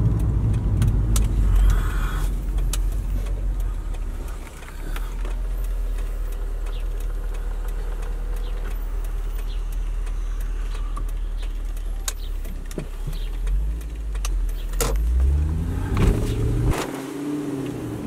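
Lexus SC430's 4.3-litre V8 fitted with an Injen short ram intake, heard from the open-top cabin while driving. The engine runs at a steady drone, then rises in pitch under acceleration near the end.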